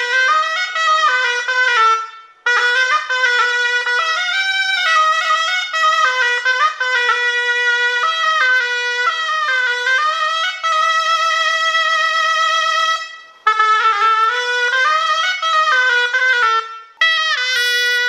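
Moroccan ghaita (rhaita), a wooden double-reed shawm, playing a loud ornamented melody in phrases. It breaks off briefly about two seconds in, again after about thirteen seconds and once more near the end, and holds one long wavering note before the second break.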